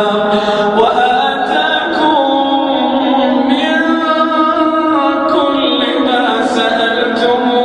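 Quran recitation in the melodic tajweed style: a single male voice holding long, drawn-out notes that glide slowly up and down.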